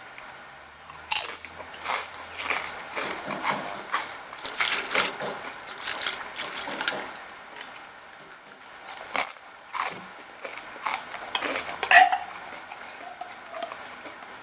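A person eating: chewing and biting, with irregular crackles and clicks.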